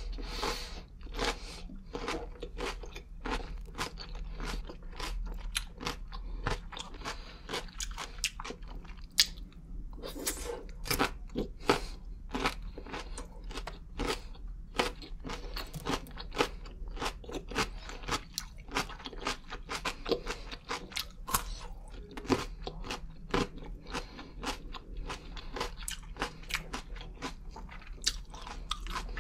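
Close-miked crunchy chewing of raw carrot: wet, irregular crunches and crackles that go on without a break.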